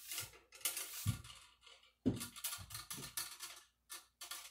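Cleaning rod with a bore mop being pushed and pulled through the barrel of a black powder muzzleloading rifle, a run of uneven scraping strokes to dry the bore after a water wash, with two dull thumps about one and two seconds in.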